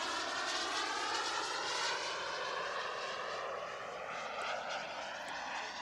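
KingTech K70 G4+ model jet turbine of an HSD Jets T-45 RC jet whining in flight, a steady rushing whine whose pitch slowly rises.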